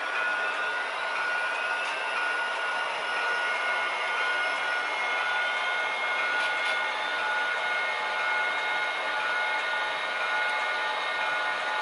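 DCC sound decoders in HO-scale model diesel locomotives, GP-30s and GP-60s, playing prime-mover and turbocharger sound through small speakers. It is a steady whining drone with a few tones slowly rising in pitch and a few faint clicks.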